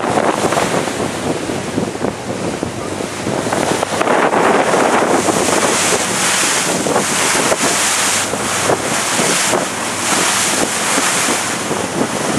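Wind buffeting the microphone in gusts on the open deck of a moving ferry, over the rush of water and the wake along the hull. The hiss grows brighter from about halfway through.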